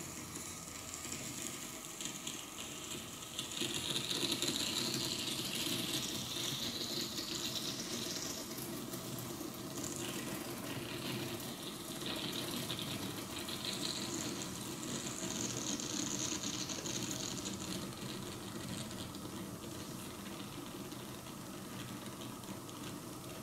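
Red-hot metal ball sizzling and crackling as it burns and melts its way into a stack of chocolate bars, in flames. A steady dense crackle, with a hiss that swells about four seconds in and again around fifteen seconds.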